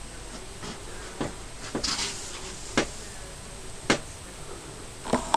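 Half a dozen short, sharp clicks at irregular intervals, the later ones louder, with a brief hiss about two seconds in, over a faint steady background hiss.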